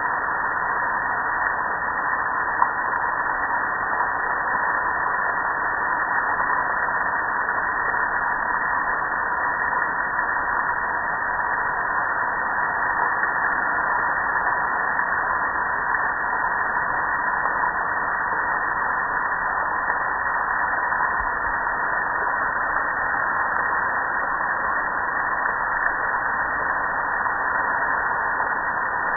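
Water spraying and pouring over a gas grill, a steady rushing and splashing that doesn't let up.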